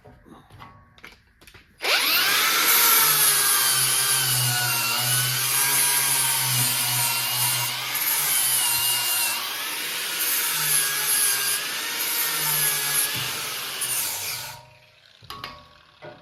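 A grinder cleaning up a steel hitch tongue. It starts about two seconds in and runs with a whine that wavers as it bears on the metal, then stops a little before the end.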